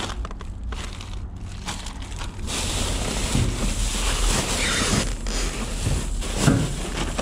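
Plastic trash bags rustling and crinkling as a gloved hand rummages through trash in a dumpster. It starts with scattered rustles, and from about two and a half seconds in the crinkling becomes louder and continuous.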